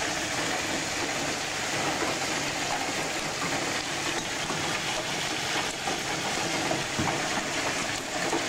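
Heavy hail and rain coming down in a steady, dense roar, with a few sharper knocks of hailstones striking.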